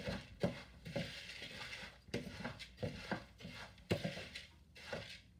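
Metal spoon stirring dry rolled oats in a plastic mixing bowl: an irregular run of light scrapes and taps, about two a second.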